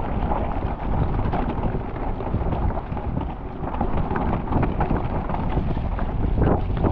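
Wind rushing over the microphone and mountain-bike tyres running over a wet, rough trail on a descent, with scattered knocks from the bike over bumps.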